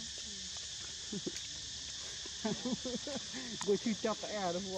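Steady high-pitched drone of insects. From about halfway, people's voices are heard talking in the background.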